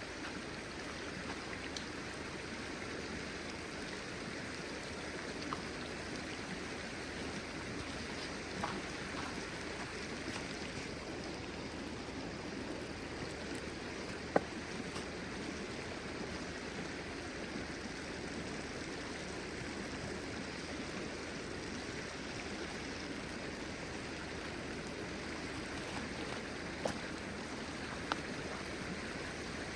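Steady rush of a flowing stream, with a few sharp isolated clicks or snaps scattered through it; the loudest comes about halfway.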